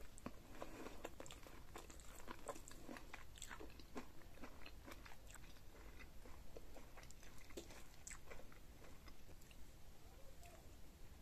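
Close-miked biting into boiled corn on the cob and chewing it, with many small crisp clicks and crunches of the kernels. The clicks are busiest over the first few seconds, then thin out.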